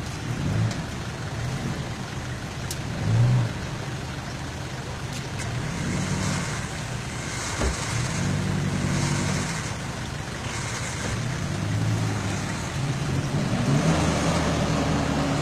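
Off-road 4x4 engine revving in repeated surges that rise and fall, working under load in deep mud and water during a rope recovery. A short loud burst comes about three seconds in, and a sharp knock about halfway through.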